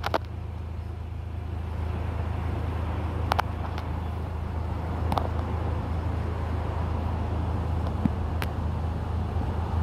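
Outdoor ambience: a steady low rumble like distant road traffic, with a few faint clicks about three, five and eight seconds in.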